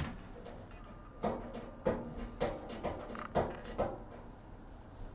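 A run of about six short knocks and clunks over three seconds, as parts of a toaster oven and its packaging are handled and set in place.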